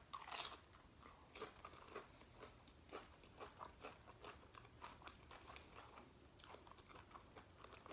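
A person biting and chewing crunchy food: a run of faint, quick crunches, loudest just after the start.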